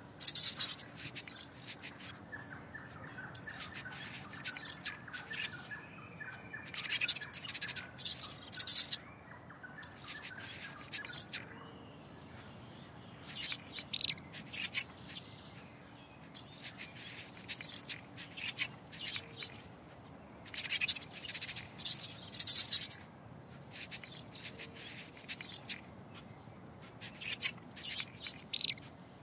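High-pitched mouse squeaks from a sound effect, coming in quick chittering bursts of one to two seconds about every three seconds.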